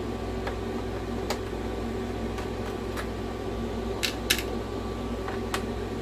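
Light clicks and taps of small screws and parts being handled on a workbench during console disassembly. Two sharper clicks come close together about four seconds in, over a steady low hum.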